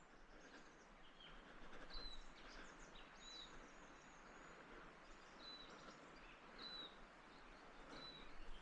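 Quiet bush ambience with faint birdsong: short high chirps and whistled notes, some dropping in pitch, come every second or so.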